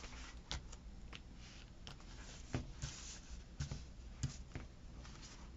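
Faint handling of paper sticker sheets and planner pages: soft rustles and about a dozen scattered light ticks as box stickers are picked out and pressed down.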